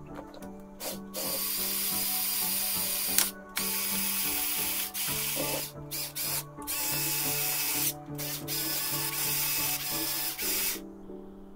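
Lego Technic walking mechanism running: an electric motor and plastic gears whirring in stretches of a second or two that stop and start again several times, over background music.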